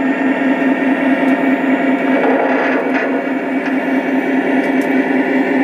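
Lionel O scale Grand Trunk Western SD38 model diesel locomotive and its train running past on the track: a steady, throbbing drone with a rolling rumble from the wheels and cars.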